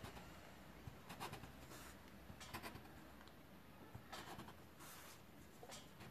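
Near silence with several faint, short scratchy rubbing strokes as hands press dough into a small pastry mould on a floured table.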